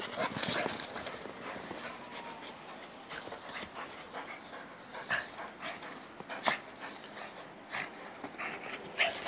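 Two dogs, a Boxer and a Boston Terrier, playing in deep snow: a dog whimpering and panting, among scattered sharp crunches of paws in snow.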